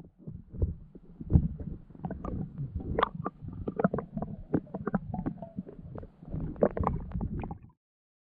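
Muffled underwater sound picked up by a diving camera: irregular knocks and clicks over a low rumble. It cuts off abruptly near the end.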